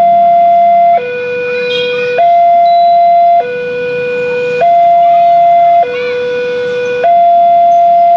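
Railway level-crossing warning alarm sounding as a train passes: a loud electronic two-tone signal alternating between a higher and a lower tone, each held just over a second, the higher one louder. The passing train's rumble runs faintly beneath.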